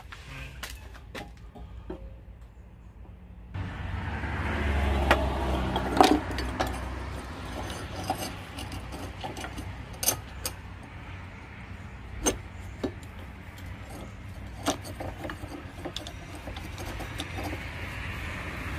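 Scattered sharp metallic clinks and knocks from steel parts being handled, over a steady low rumble.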